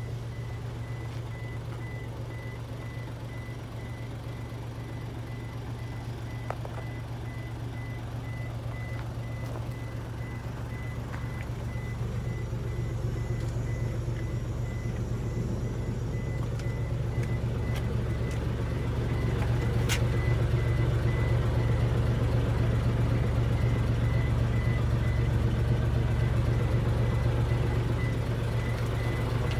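Hino truck's engine idling with a steady low drone that grows louder about halfway through, while a warning beeper repeats short high beeps at an even pace.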